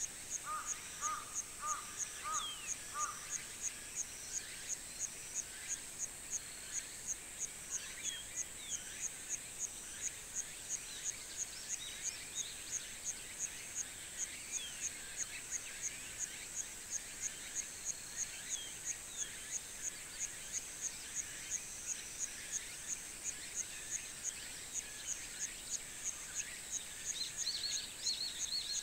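Insects in a summer countryside chorus, making a steady high buzz with a regular pulse about two to three times a second, under scattered bird chirps; a bird gives a short run of about six repeated notes in the first few seconds.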